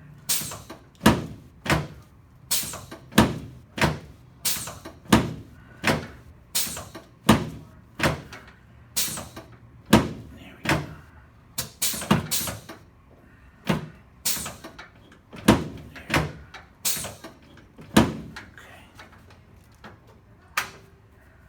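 Chiropractic drop table's pelvic section clacking down under repeated thrusts on the sacrum, its tension turned down for a light patient. About one sharp knock every 0.7 s, thinning out in the last few seconds.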